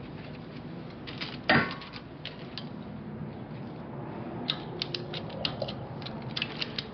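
Metal clanks and clicks of an expandable skate-wheel roller conveyor being handled against a trailer's rear. There is one loud knock about a second and a half in, then a run of quick clicks near the end.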